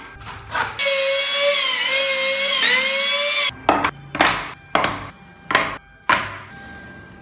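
Music: a single bending note held for about three seconds, then a series of sharp hits about half a second apart that each fade quickly. Within the first second there are a couple of rasping strokes on wood.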